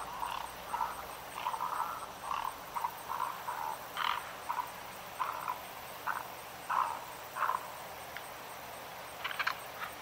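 Short croaking animal calls, repeated irregularly about twice a second, pausing for nearly two seconds near the end.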